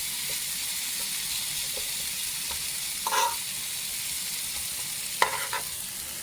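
Fried rice with shrimp and vegetables sizzling in an oiled skillet, a steady hiss. A utensil scrapes the pan about three seconds in and knocks against it twice near the end.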